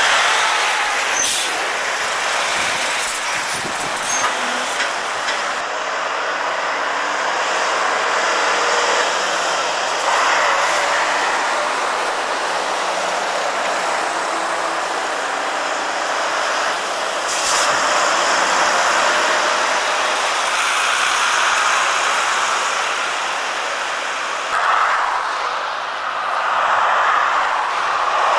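Heavy articulated lorries driving past one after another, their diesel engines and tyres making a steady loud rush of road noise. The sound changes abruptly several times as one passing lorry gives way to the next.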